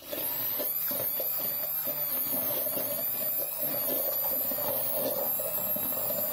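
Electric hand blender switched on and running steadily in a steel jug, pureeing boiled tomatoes; the motor's high whine wavers slightly as the blade works through the pieces.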